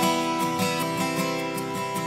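Background music led by acoustic guitar, with a steady rhythm of plucked or strummed notes.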